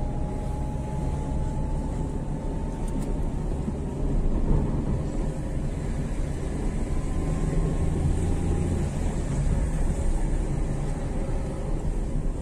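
Steady engine and tyre rumble heard from inside the cabin of a vehicle moving slowly through town streets.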